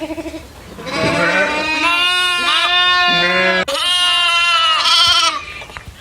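Goats bleating: a string of long, wavering bleats, one after another, from about a second in until just after five seconds.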